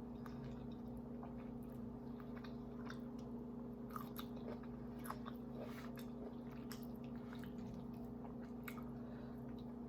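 Close-up chewing of creamy Alfredo pasta: faint, wet mouth clicks and smacks scattered irregularly, over a steady low hum.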